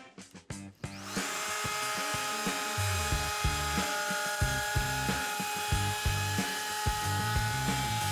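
Festool MFK 700 compact router starts about a second in, then runs with a steady whine while cutting a 9 mm-deep dado into the edge of a wooden door stile. Background music with a steady beat plays underneath.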